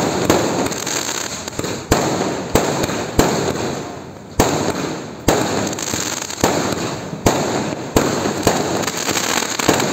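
Aerial fireworks bursting overhead in quick succession: a sharp bang about once a second, each followed by a spray of crackling that dies away before the next.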